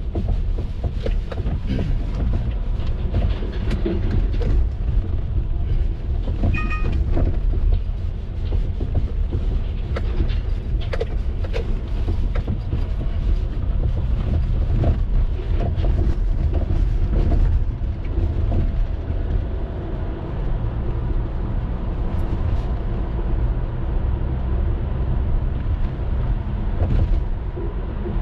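Car driving through city streets in the rain: a steady low road rumble with scattered knocks and clicks, and a short high beep about six and a half seconds in.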